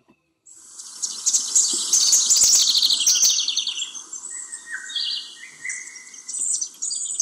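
Songbirds singing and chirping in a dense chorus of rapid high trills, with a few lower whistled notes sliding down in pitch in the middle; it starts about half a second in.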